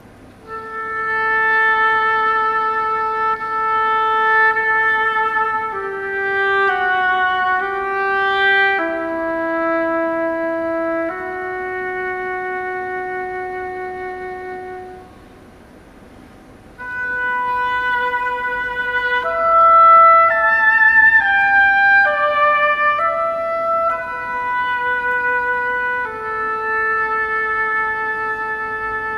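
Oboe and flute playing a classical duet of long held notes. The music breaks off about 15 seconds in and starts again about two seconds later.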